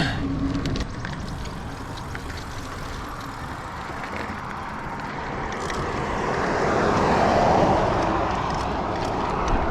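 Niner Air 9 RDO 29er mountain bike rolling along dirt singletrack: tyre noise with small drivetrain clicks and rattles, a rushing noise swelling to its loudest about seven seconds in, then easing.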